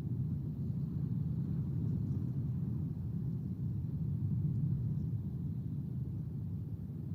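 Wind buffeting an outdoor nest-camera microphone: a steady low rumble that swells a little midway.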